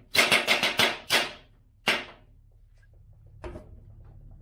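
A quick run of about six sharp metallic knocks, then two more single knocks, from hand tools striking metal while working on the car's front suspension. A low steady hum comes in near the end.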